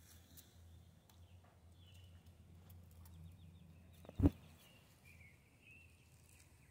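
Quiet outdoor background: a low steady rumble with faint bird chirps, broken by a single dull thump about four seconds in.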